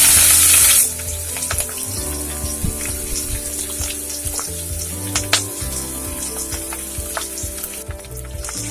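Chopped onions going into hot mustard oil. A loud sizzle dies down within the first second to a steady, softer frying hiss, with scattered crackles and pops.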